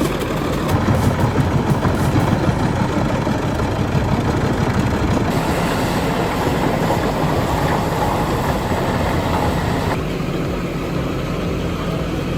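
Large industrial wood chipper running under load: a steady heavy engine drone under the dense noise of wood being chipped. The higher-pitched part of the noise drops a little about ten seconds in.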